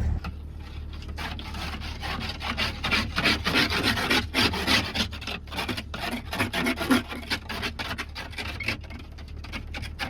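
Snow scraper and brush scraping snow and ice off the van in rapid, repeated rasping strokes, over the faint low hum of the van's engine warming up.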